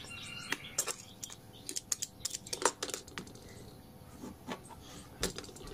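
Irregular small clicks and taps of fingers handling a tweeter's voice-coil dome and magnet assembly while centring the coil in the magnet gap, with a duller knock about five seconds in.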